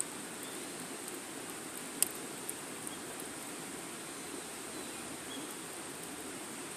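Wood fire burning with a steady hiss and scattered crackling: one sharp pop about two seconds in, then two smaller snaps.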